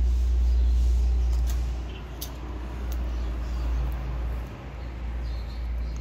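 Low, wavering outdoor rumble, loudest in the first two seconds, with a few faint clicks.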